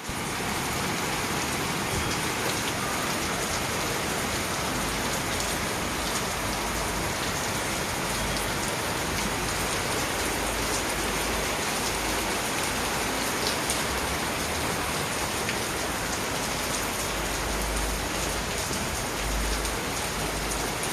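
Steady rain falling: a dense, even hiss with scattered sharper drop hits, and a low rumble coming and going underneath.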